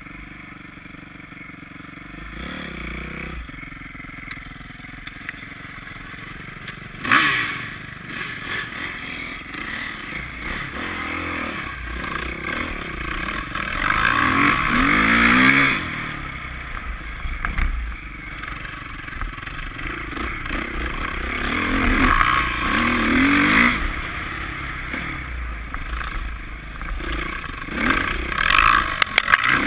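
Dirt bike engine heard on board, running and revving up and down in several surges as the bike rides through snow. There is a sharp knock about seven seconds in.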